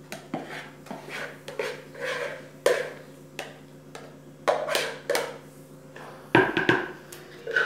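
Plastic spatula scraping batter out of a plastic Tupperware bowl into a plastic Tupperware Crystal Wave microwave dish, with a run of short scrapes and hollow plastic knocks. A cluster of louder knocks a little past six seconds in as the dish's lid is pressed shut.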